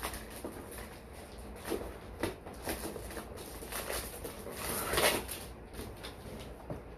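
A cardboard product box being handled during unboxing: scattered light knocks and rustles, with one louder rustle about five seconds in.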